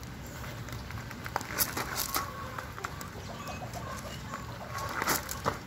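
A homemade smoke device's fuse lit and sputtering, with irregular sharp crackles and clicks, loudest about two seconds in and again near the end, and a few short chirp-like tones in between.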